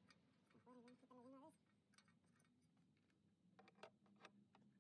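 Near silence: a brief faint wavering tone about a second in, then a few faint clicks near the end as parts are handled in the engine bay.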